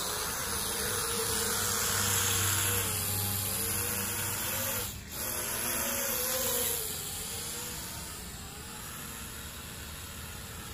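Dominator toy quadcopter's small electric motors and propellers buzzing as it takes off and flies, the pitch wavering up and down with the throttle. The buzz gets quieter about seven seconds in.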